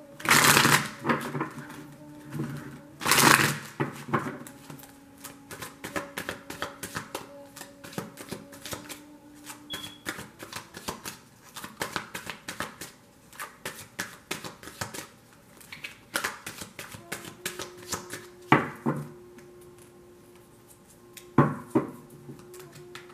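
A deck of tarot cards being shuffled by hand: two louder bursts of riffling in the first few seconds, then a long run of quick card flicks and taps, with a few louder bursts again near the end.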